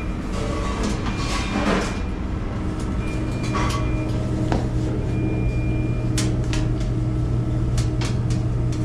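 A steady low mechanical hum, with a rustle about one and a half seconds in and a run of sharp clicks and knocks from about six seconds on.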